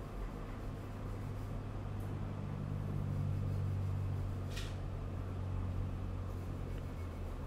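Steady low machine hum, swelling a little in the middle, with one short hiss about four and a half seconds in.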